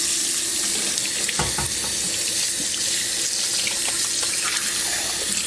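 Tap water running steadily into the bath basin, a continuous rush of pouring water.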